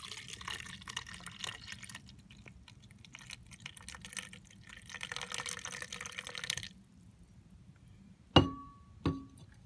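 Water poured in a steady stream from a metal drinking bottle into a plastic container already holding some water, splashing for about seven seconds before it stops. Near the end come two sharp knocks, each with a short ring.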